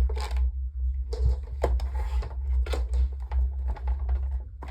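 Irregular clicks, taps and scraping of desk fan parts being handled and fitted back together, over a steady low hum.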